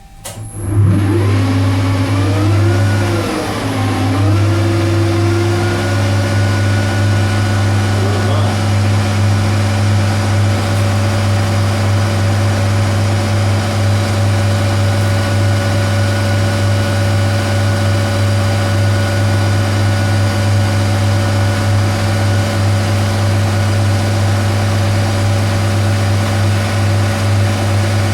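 Metal lathe switched on: the motor and spindle run up with a wavering whine over the first few seconds, then run steadily with a strong low hum.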